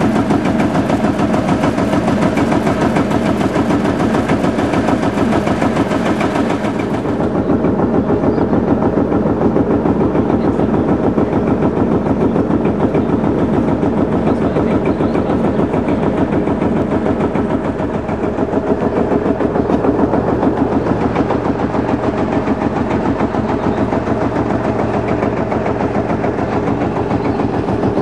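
Field Marshall tractor's single-cylinder two-stroke diesel engine running with a steady, rapid chugging beat, a little duller after about seven seconds.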